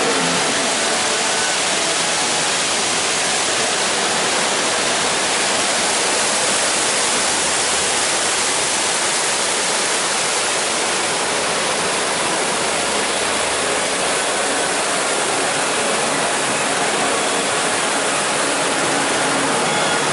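Steady, even rushing noise of riding in an open-sided monorail car: wind and the train's running noise, unchanging in level.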